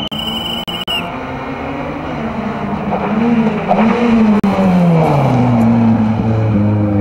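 Honda Civic Type R rally car's four-cylinder engine running hard on a rally stage. Its pitch rises and falls repeatedly as the car comes through, then settles to a steady lower note about five seconds in. A high, steady whistle-like tone sounds over the first second.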